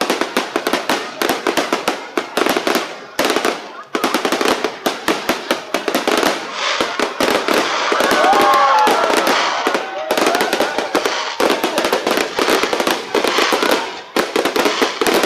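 Strings of firecrackers going off in a rapid, continuous crackle of sharp bangs, with only brief pauses, and voices heard faintly underneath.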